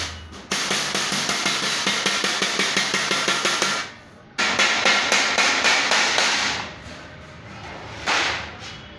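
Wooden mallet beating the edge of a metal sheet over a steel edge to fold it: a rapid, even run of strikes that breaks off briefly about four seconds in, resumes, then stops, with a short rasp near the end.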